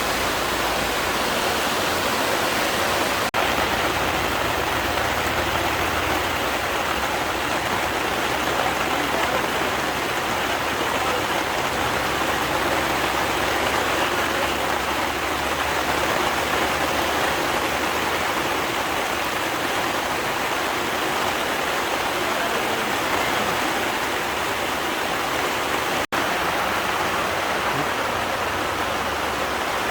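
Steady rushing noise, even throughout, with two brief cut-outs: one about three seconds in and one near the end.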